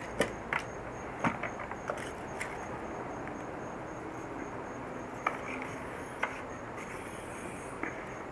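A pump partially inflating a bicycle inner tube through its Schrader valve, so the tube takes its shape before it goes into the tyre. A steady hiss, with several sharp clicks in the first two seconds and two more later on.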